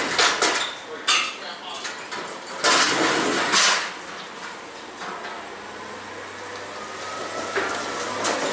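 Metal clanking and rattling, as of freight being handled at a delivery: a few sharp clanks in the first second or so, then a longer clatter about three seconds in. A low steady hum follows.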